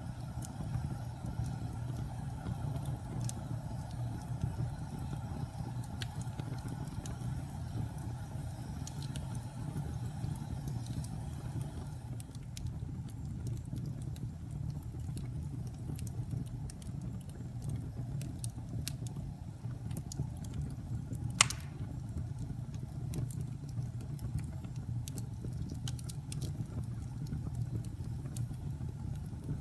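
Fire burning with a steady low rumble and scattered crackles, and one sharp loud pop about 21 seconds in. A soft hiss fades out about 12 seconds in.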